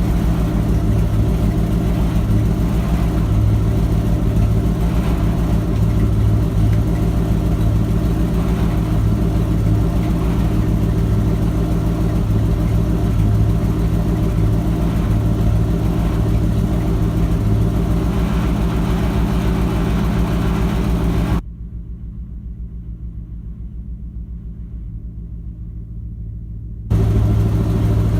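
Ford 7.5 L 460 big-block V8 idling steadily, warming up after a start. About 21 seconds in it turns abruptly quieter and muffled for about five seconds, then comes back at full level.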